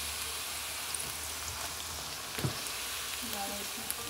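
Hot oil sizzling steadily in a wok as battered pieces deep-fry. A single dull knock comes about two and a half seconds in.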